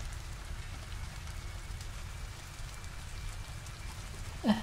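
Steady rain falling, an even hiss over a low rumble.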